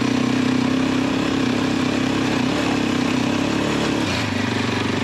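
Motorcycle engine running at a steady throttle, its note changing and dropping a little about four seconds in.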